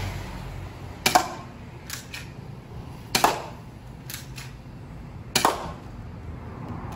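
Taurus PT 92 replica airsoft pistol firing three sharp shots about two seconds apart, with fainter clicks between the shots.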